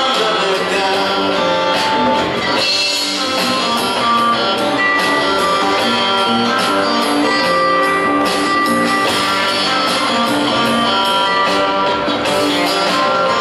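Live rock trio playing: electric guitar over upright bass and a drum kit, with steady cymbal and drum hits.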